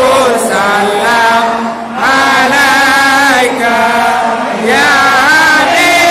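Men chanting a devotional Maulid recitation together, in long held phrases that bend up and down in pitch, with short breaks about two seconds in and again about four and a half seconds in.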